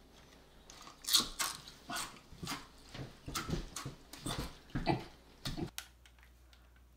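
Dog sounds: a run of about ten short yips and whines, coming roughly two a second, which stops about a second before the end.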